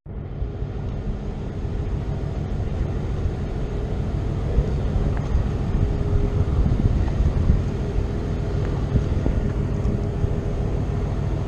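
Fishing boat's engine running steadily, a low rumble with a faint hum.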